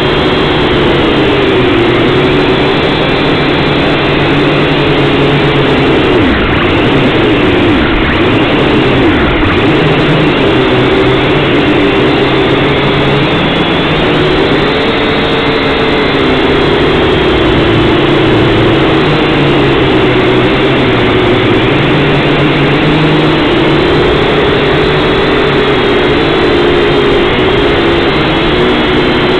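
Syma X5C-1 quadcopter's four small brushed motors and propellers, heard up close through its own onboard camera: a loud, steady buzzing whine whose pitch drifts up and down as the motor speeds change in flight.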